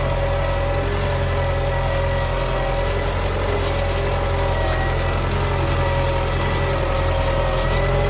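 Belarus MTZ-82 tractor's four-cylinder diesel engine running steadily under load as it pulls a three-furrow plough through hard, dry soil.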